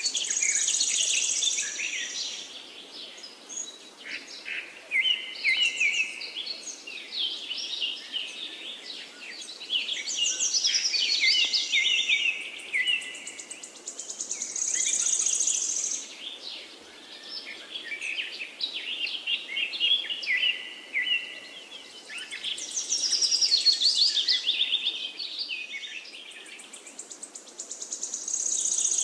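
Songbirds singing: bursts of quick, high chirps and warbled phrases, with a buzzy high trill that comes back every several seconds.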